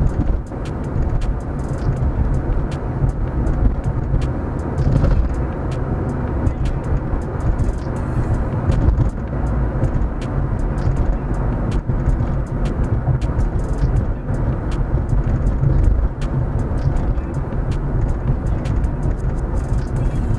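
Car driving at road speed, heard from inside the cabin: a steady low rumble of engine and tyres on the road, with occasional faint clicks.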